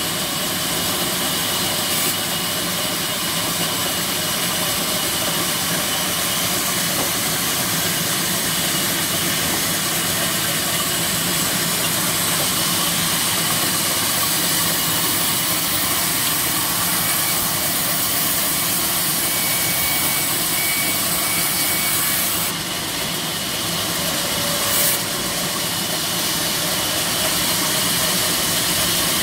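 Belt-driven sawmill rip saw running and ripping rain tree slabs, a loud, steady high hiss and whine. The sound dips briefly about three-quarters of the way through, and a single sharp knock follows.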